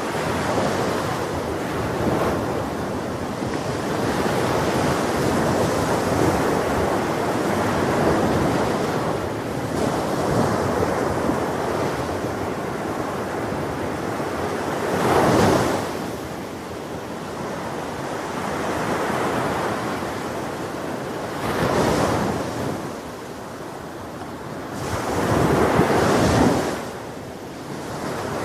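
Ocean waves breaking on a beach, a continuous wash of surf that swells louder three times, around the middle, later on and near the end, with wind on the microphone.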